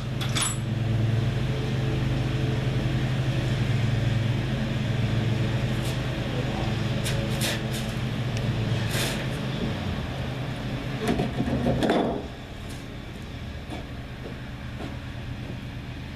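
A vehicle engine idles steadily, then cuts off about twelve seconds in. A few light clicks and knocks of gear being handled sound over it.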